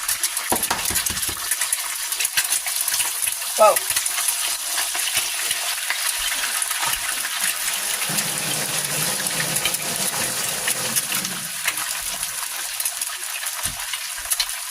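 Eggs frying in a very hot pan: a steady sizzle with lots of small crackles and pops of spitting fat.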